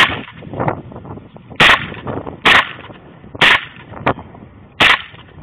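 Unsuppressed HK MP7 submachine gun (4.6×30mm) firing single shots, a sharp crack roughly once a second, with fainter gunshots in between.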